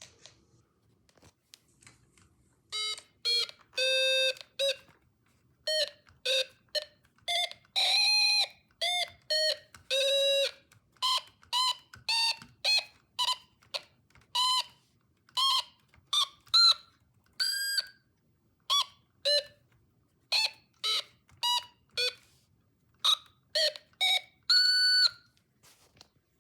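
Electronic beeps from a Snap Circuits sound circuit's small speaker: a long, uneven run of short tones that jump in pitch from one beep to the next, some held a little longer, starting about three seconds in.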